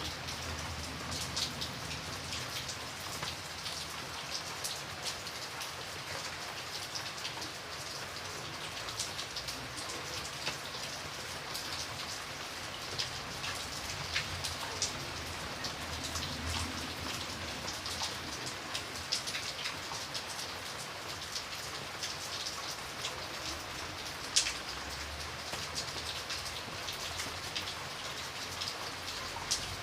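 Steady rain falling, with many individual drops tapping sharply on a surface; one drop lands noticeably louder about three-quarters of the way through.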